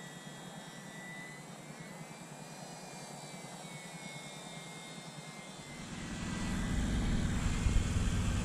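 Distant whine of a UMX Turbo Timber's small brushless electric motor and propeller in flight, a thin tone that wavers slightly in pitch. About six seconds in, a louder low rumbling noise comes in and stays.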